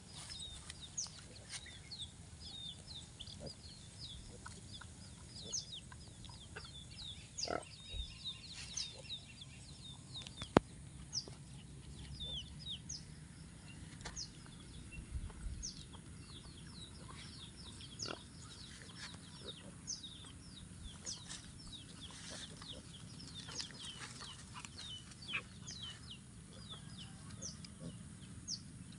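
Chickens in a farmyard: a steady scatter of many short, high peeps, typical of chicks, with hens clucking. A single sharp click about ten seconds in.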